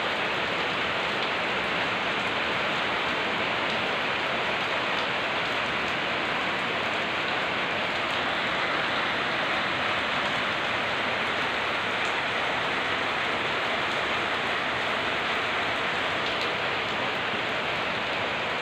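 Steady rain falling on wet brick paving and into a puddle, an even hiss with no break.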